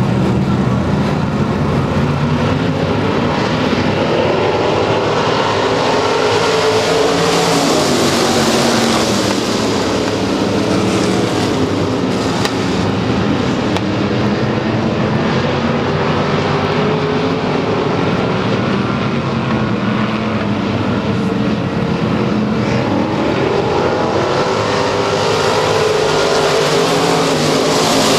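A pack of dirt-track race cars running hard around the oval, their engines overlapping with pitches that waver up and down through the turns. It swells louder as the cars pass close about 8 seconds in and again near the end.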